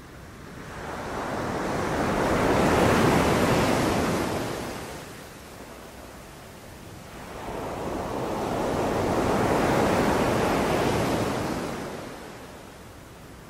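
Sea waves breaking on a beach: two waves about seven seconds apart, each swelling up over a couple of seconds and falling away.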